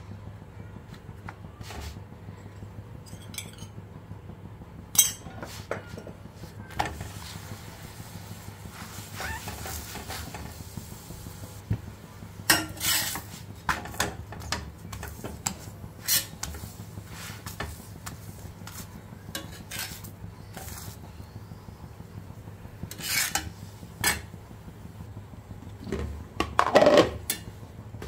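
Steel spatula scraping and clinking against an iron tawa as a roti is pressed and turned, in scattered short scrapes with a steady low hum under them. The loudest clatter comes near the end, as the roti is lifted with the spatula into a stainless steel casserole.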